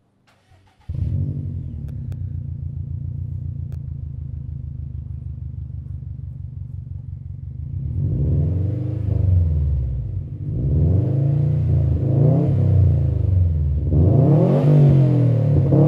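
Subaru WRX STI Type RA's turbocharged 2.5-litre flat-four engine heard at the exhaust tips: it starts up about a second in and idles steadily, then is revved three times from about eight seconds in, each rev rising and falling, the last one the loudest.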